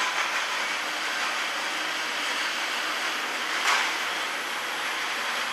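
ENCON N33V3-400 gas-fired thermal wastewater evaporator running: a steady rushing hiss from its burners and fan, with a brief louder swell about two-thirds of the way through.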